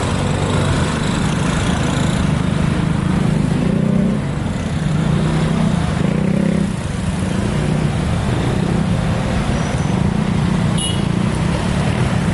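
Vehicle engines running steadily at close range: a continuous low rumble without clear breaks.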